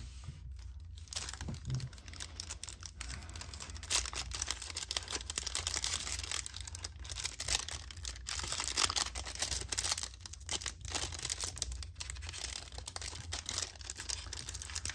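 Plastic wrapper of a trading card pack crinkling and tearing as it is worked open, a dense run of crackles; the pack is a stubborn one to open.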